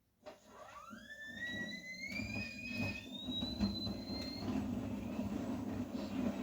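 Vestel CMI 97302 washing machine motor starting up and speeding the drum: a whine rises in pitch for about three seconds and then levels off, over a steady rumble that grows louder.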